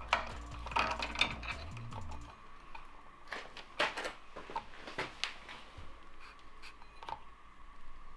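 Steel roller chain clinking and rattling against a sprocket and a steel plate as it is handled and fitted, in a series of irregular sharp metal clicks.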